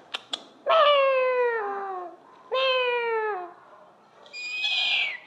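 Small dog whining: two long drawn-out cries that slide down in pitch, then a shorter, higher, thinner cry near the end.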